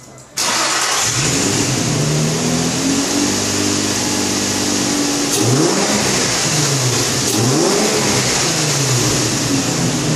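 2006 Nissan 350Z's 3.5-litre V6 starting up suddenly about half a second in and then running loudly. A few blips of the throttle rise and fall in pitch near the middle.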